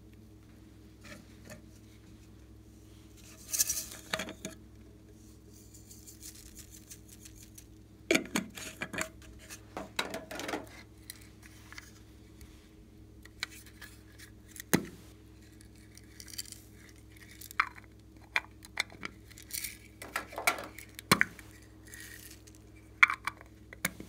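Small plastic containers and packaging being handled: scattered clicks, taps and crinkles at irregular intervals, some in short clusters, over a steady low hum.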